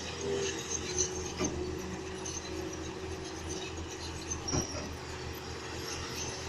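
Heavy tracked earthmoving machinery working: a steady low diesel rumble with a drawn-out metallic squeal, and two sharp clanks, about a second and a half in and again near four and a half seconds.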